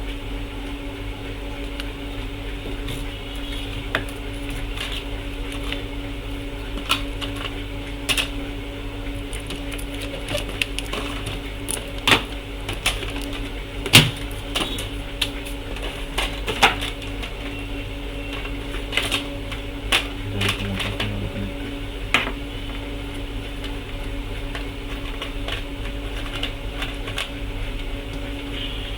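Scattered sharp clicks and taps of hands working over a laptop motherboard and its power hookup on a repair bench, over a steady electrical hum.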